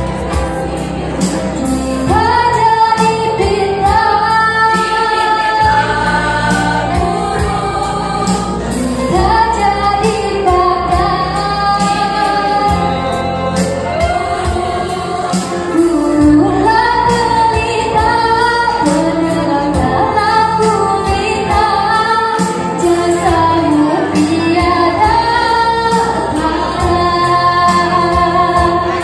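A girls' choir singing a song, amplified through handheld microphones.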